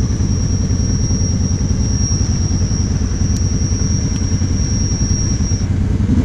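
Kawasaki KVF 750 Brute Force's V-twin engine idling steadily, with a thin high whine that stops near the end.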